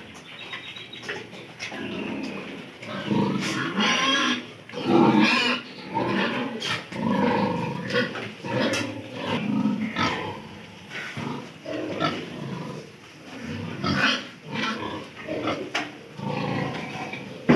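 Piglets grunting: a rapid, irregular string of short calls that goes on throughout.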